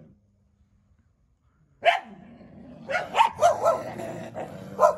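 Street dogs barking: after a near-silent start, one sharp bark about two seconds in, then a quick run of barks from about three seconds in. It is a warning display, which the narrator reads as fear-driven guarding behaviour.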